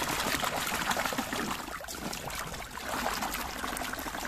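Muddy water splashing and sloshing as hands scrub a plastic toy bus under the water, a dense crackle of small splashes.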